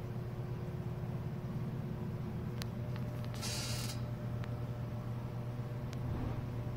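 A steady low mechanical hum, with a few faint clicks and a short hiss about halfway through.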